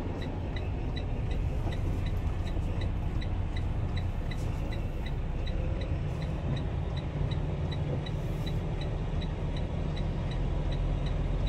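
Steady low rumble of a semi truck's diesel engine and road noise, heard from inside the cab, with a faint regular ticking about four times a second.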